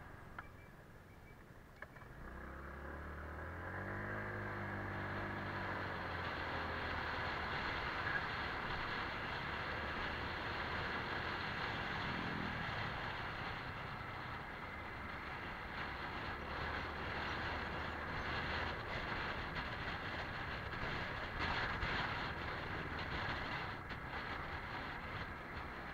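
Honda PCX scooter's single-cylinder engine being ridden: quieter at first, then about two seconds in the engine note rises as it picks up speed. Wind and road noise follow as it rides on.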